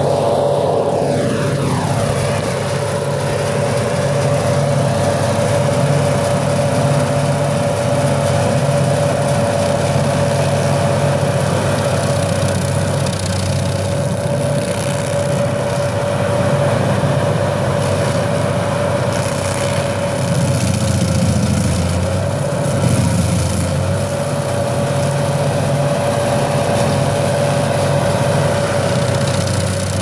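Carlton tracked, remote-controlled stump grinder running, its cutter wheel grinding into a tree stump: a steady engine drone with a steady high whine over it. The note wavers briefly about three-quarters of the way through.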